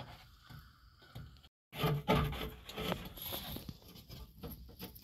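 Jute cord rubbing and scraping as it is pulled through and knotted tight, faint at first and louder and busier after a brief gap about a second and a half in.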